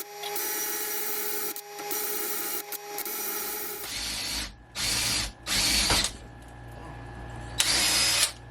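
Handheld electric drill running as it drills the tap-drill hole for a 1/4-20 thread in a cast steel timpani hanger arm, a steady whine with two short breaks. After that come four short harsh bursts, each about half a second long.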